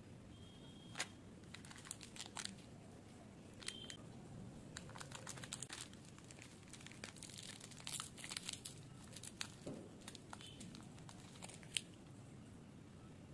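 Crimped plastic wrappers of Lotte Juicies candies crinkling and tearing as a wrapped sweet is picked open with gloved fingers: scattered crackles and sharp ticks, busiest in the middle.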